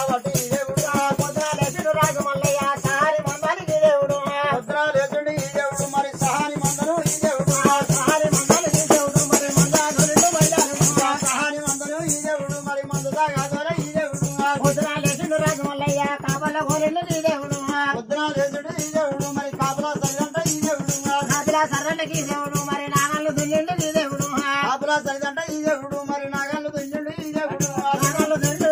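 A jingled frame drum (tambourine) played in a fast, steady beat, its jingles rattling on every stroke, under a held, wavering melody line.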